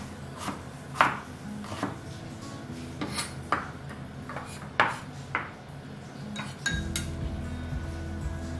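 Chef's knife chopping diced carrots on a wooden cutting board: irregular sharp knocks and scrapes of the blade on the board, roughly every half second. Background music runs underneath and gets louder near the end.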